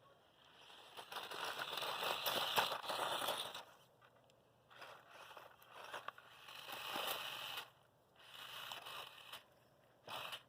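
Losi Mini-T 2.0 RC truck's knobby tires spinning and scraping in loose dirt in about five bursts of throttle with short gaps between them: the little truck is stuck with its chassis hung up.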